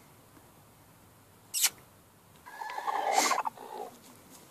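A short, sharp noise about one and a half seconds in, then a longer squeaky animal call with a rough edge lasting about a second and a half.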